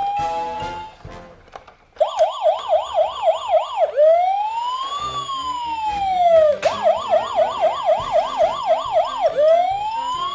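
Toy emergency vehicle's electronic siren, alternating a fast yelp of about four warbles a second with a slow wail that rises and falls over about two and a half seconds. An earlier rising tone fades out first, and the yelp starts suddenly about two seconds in.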